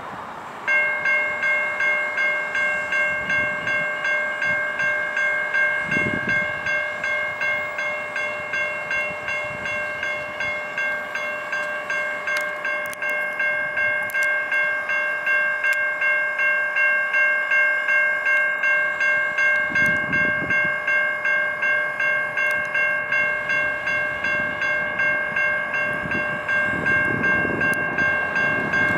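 Low-pitch Siemens electronic crossing bell (E-Bell) on a railroad crossing signal, ringing as the crossing activates for an approaching train. It starts suddenly about a second in and strikes evenly about twice a second, a bright electronic ding with several tones at once.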